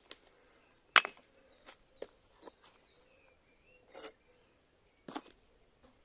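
A few scattered light knocks and clinks, the loudest about a second in, as a hatchet is set down and a plastic flower pot is handled, with faint bird chirps behind.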